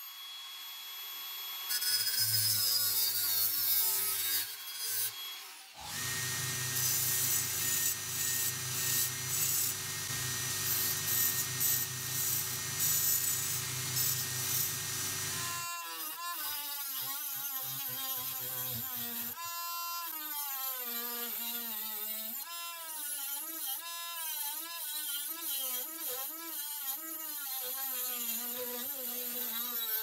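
An abrasive cut-off disc on a grinder cuts into a copper tube, then about halfway through a small rotary tool with a cut-off disc takes over, its high motor whine wavering in pitch as it bites into the copper.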